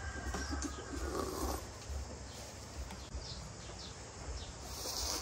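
A person slurping hot instant-noodle broth from a spoon for about the first second and a half, then a short hissy slurp near the end.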